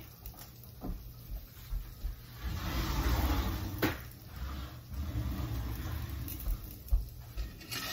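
Dry shell pasta toasting in oil in a pan, stirred with a wooden spoon: a scraping, rustling stir with a light sizzle, swelling in the middle, and a couple of sharp knocks of spoon against pan.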